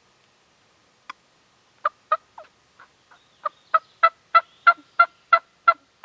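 A series of short, sharp turkey calls: one note about a second in, a few scattered notes, then a steady run of about three a second that grows louder toward the end.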